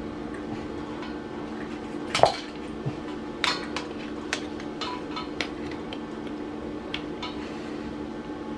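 Metal tools clinking and tapping against metal in a string of separate, irregular strikes, the loudest about two seconds in, over a steady low hum.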